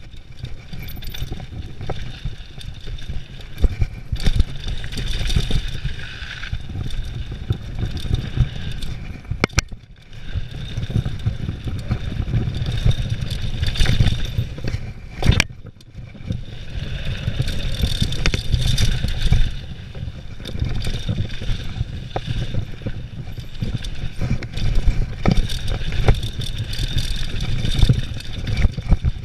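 Mountain bike riding fast down a dirt trail, heard from a camera on the rider or bike: a steady rumble of tyres and wind on the microphone, broken by frequent clattering knocks as the bike hits bumps and lands jumps, the sharpest about halfway through.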